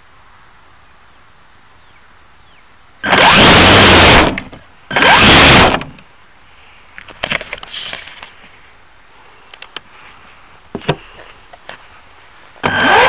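Camera on a model airplane picking up two loud bursts of noise, each about a second long, then a few knocks and clicks. Near the end the plane's motor starts and its propeller spins up with a rising whine, running loud and steady.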